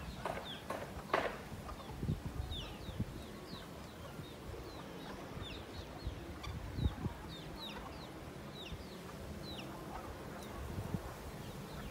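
Domestic chickens clucking and chirping: a few clucks at the start, then short, high, falling chirps repeating about twice a second, with a few low thumps underneath.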